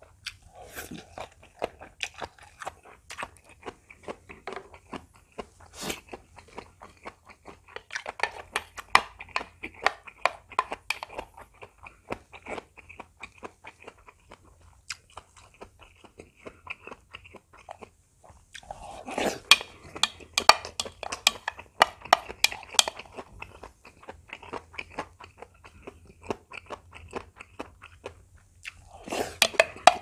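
Close-miked chewing and crunching of food, with many sharp clicks of chopsticks and a spoon against a bowl. The crunching and clicking come in denser, louder stretches about a third of the way in, again just past the middle, and at the end as the bowl is lifted and food is scooped from it.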